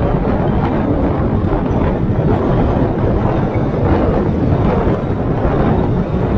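Steady wind and road noise from a moving car, the wind buffeting the microphone, with no pauses or distinct events.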